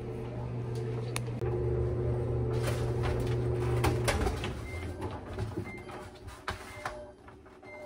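Laundry-room handling sounds at an LG front-loading washer and dryer: a steady low machine hum that stops about four seconds in, knocks and clicks of doors and clothes, and four short high beeps about a second apart from the machine's control panel.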